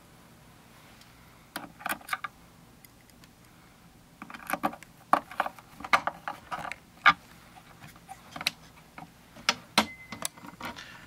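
Small metal parts of a Technics SL-1200 tone-arm base clicking and tapping as they are handled and fitted by hand. There are a few clicks about two seconds in, a busy run of sharp clicks from about four to seven seconds, and a few more near the end.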